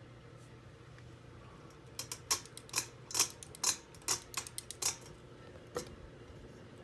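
SMC DC42 (Park Avenue II) ceiling fan running with a low steady hum. About two seconds in comes an irregular run of a dozen or so sharp clicks lasting about three seconds, then one more click.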